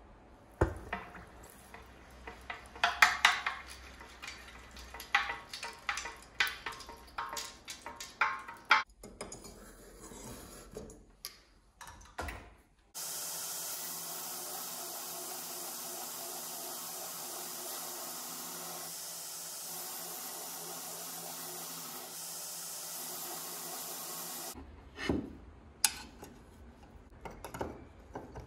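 Through the first half, a series of metal clanks and knocks with short ringing, as a red-hot steel blade is handled at a steel quench tank. Then a belt grinder runs steadily with a high hiss, grinding steel, and cuts off suddenly. Near the end come light clicks and knocks of a metal clamp being fitted to a knife-sharpening jig.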